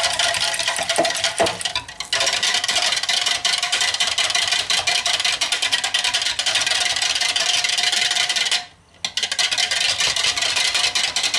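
Small wire whisk beating yogurt and water together in a plastic measuring jug: a fast, loud clatter of wire against the plastic, with a short pause about two seconds in and another near the end, as the ayran is whisked smooth.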